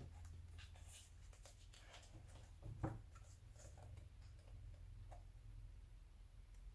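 Faint rustling of glossy magazine paper as pages are handled and turned, with one slightly louder rustle about three seconds in, over a low background hum.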